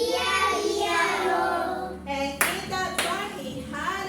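Children's voices singing a song together, with hand claps, two sharp ones in the second half.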